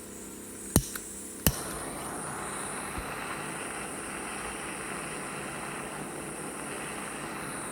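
Small Dremel butane torch hissing steadily as it heats a screw to soften the Loctite threadlocker. Two sharp clicks ring out around one and one and a half seconds in, after which the hiss grows fuller.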